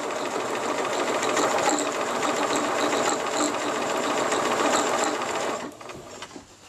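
Bernina 1030 mechanical sewing machine running steadily with rapid even needle strokes, sewing a decorative stitch; it stops about five and a half seconds in.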